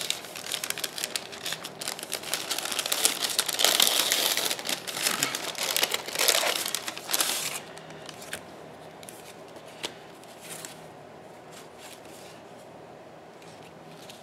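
Crinkly wrapping being pulled open and crumpled by hand as a packet is unwrapped, loud and continuous for about the first seven seconds. It then drops to a soft rustle with a few light taps as the cards inside are handled.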